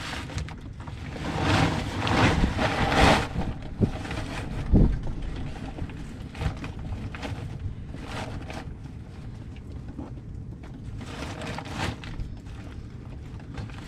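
Hand-tool work on a log skidder's engine oil drain plug: a wrench and hands loosening the plug, with a stretch of louder rustling and scraping a second or two in, two sharp knocks around four and five seconds in, then scattered light clicks and scrapes.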